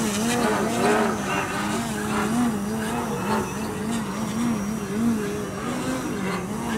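Electric motor and propeller of radio-controlled 3D aerobatic planes buzzing, the pitch rising and falling again and again as the throttle is worked to hold the red-and-white plane in a nose-up hover.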